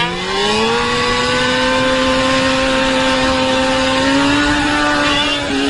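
Small motor scooter engine under way: its pitch climbs in the first second as it speeds up, then holds a steady tone, rising slightly about four and a half seconds in.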